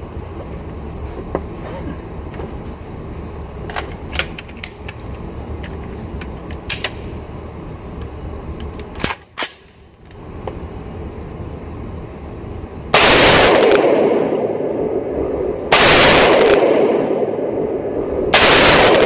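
Three shots from a short-barrelled AR-15 in .300 Blackout, starting about two-thirds of the way in and roughly two and a half seconds apart. Each loud blast is clipped and smeared into a long hiss by the cell phone microphone. Before the shots there is only background noise with a few faint sharp clicks.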